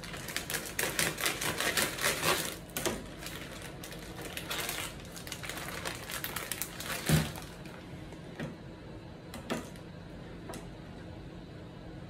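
A plastic bag of small potatoes crinkling and crackling as it is pulled open, then a single loud thump about seven seconds in. After that come a few sharp clicks of a knife on a plastic cutting board.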